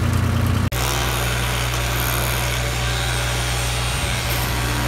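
Construction machinery engine running with a steady low hum and a noisy hiss over it; the sound breaks off sharply less than a second in and carries on at a slightly different pitch.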